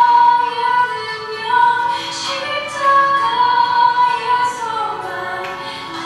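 Background music: a song with a singer holding long, slowly changing notes over accompaniment.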